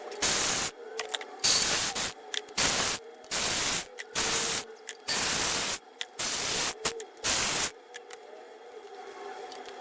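A hissing spray in about eight short bursts, each roughly half a second long, over seven seconds, then stopping.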